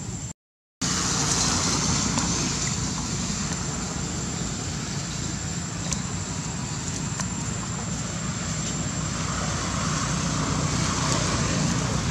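Steady outdoor background noise, a low rumble with hiss. It drops out to dead silence for about half a second just after the start.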